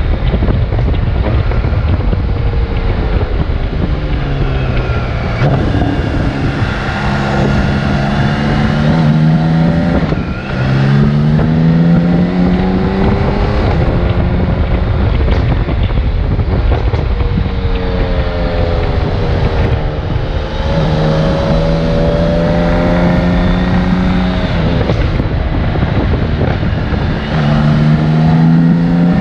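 BMW K1600GTL's inline-six engine pulling under load, its note climbing and dropping back at gear changes several times, with heavy wind buffeting on the microphone from riding at speed.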